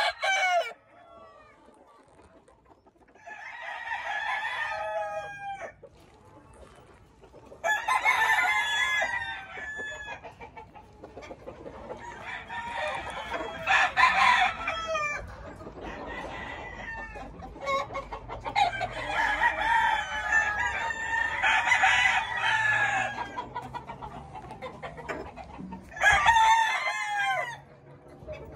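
Penned gamecocks crowing again and again, about five bouts, several roosters overlapping in a long stretch in the second half.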